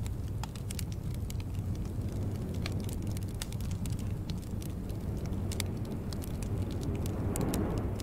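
Wood fire crackling in a fireplace: a steady low rumble of flames with sharp pops and snaps scattered throughout, and a brief louder rush of flame noise near the end.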